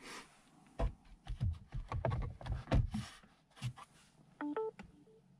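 Clicks and knocks of a Samsung Galaxy Note 9 being handled and set into a car console's wireless charging tray, then about four and a half seconds in a short electronic chime of a few notes as wireless charging starts.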